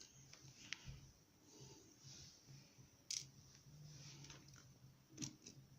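Near silence with a few faint small clicks from handling a gutted lock's pins, one sharper click about three seconds in.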